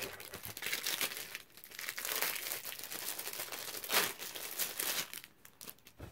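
Packaging being crinkled and torn open by hand, an irregular rustling that dies away about five seconds in.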